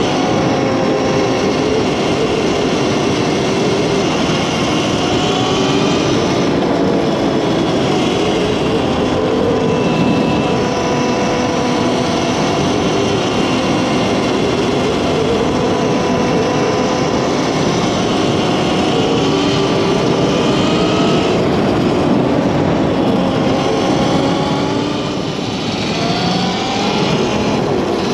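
Electric dirt bike's QS138 mid-drive motor whining as it is ridden, its pitch rising and falling with throttle and speed over a steady rush of noise. The whine eases briefly near the end before picking up again.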